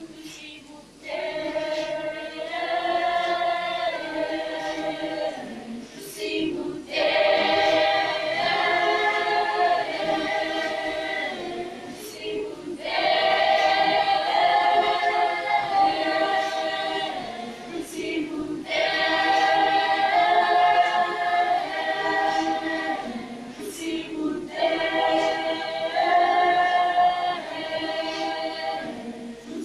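A school choir of students singing unaccompanied, in sung phrases of about six seconds each with short breaks for breath between them.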